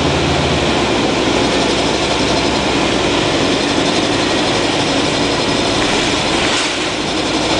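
Orion V CNG transit bus's Detroit Diesel Series 50G natural-gas engine running under a steady wash of noise. The engine's hum changes pitch about a second in, and near the end the low hum briefly dips.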